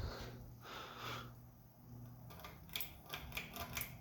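SMC U42 ceiling fan's motor humming steadily on low speed. About halfway through, a quick run of light clicks and ticks starts, as the pull chain and speed switch are worked to step it up to medium.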